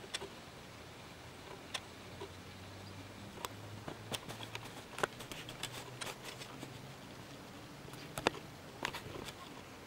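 Irregular sharp clicks and taps, a few at first, then a denser run in the middle, with one louder click near the end, over a faint low hum.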